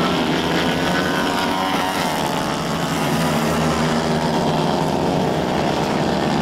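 Several 110cc racing kart engines running hard at once, their pitch rising and falling as karts pass and change speed.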